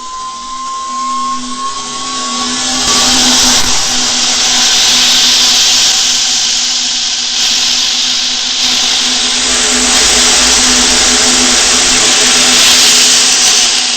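Rocket launch: a faint rising tone, then about three seconds in a loud, rushing engine roar builds up and holds steady, beginning to fade at the very end.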